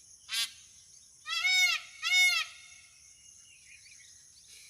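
Peacock (Indian peafowl) calling: a short, sharp cry about half a second in, then two loud, longer calls back to back, each rising and falling in pitch. Insects chirp steadily in the background.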